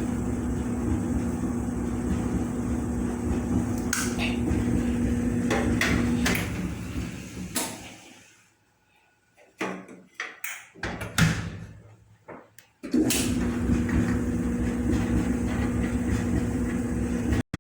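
Clothes dryer running with a steady hum. After about six seconds it winds down to quiet, a series of clunks and knocks follows, and then the running hum starts again abruptly.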